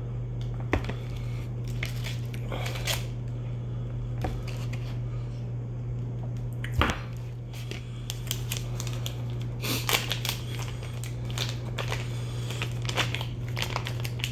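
A steady low hum under scattered clicks and knocks, with a run of crackly crunching and rustling in the second half, as food and its wrapping are handled and crackers eaten.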